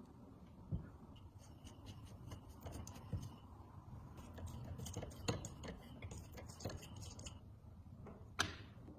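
Light, irregular clicks and taps of small hard parts being handled, with one sharper click near the end, over a faint low hum.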